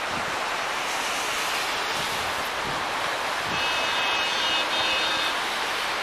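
Steady hiss of car tyres on a snowy, slushy road as traffic passes. A brief high-pitched whine joins in a little past the middle and fades about a second and a half later.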